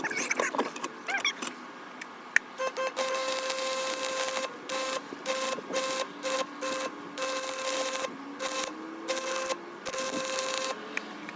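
Stick-welding arc crackling with a steady hum, breaking off and restriking many times in short runs.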